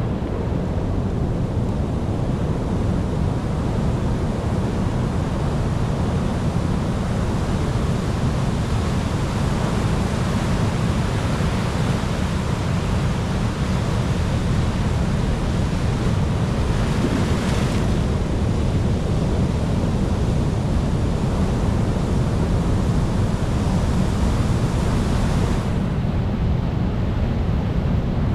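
Ocean waves breaking and washing on the shore in a steady, deep surf, with wind on the microphone. About halfway through, one wave breaks with a brighter hiss.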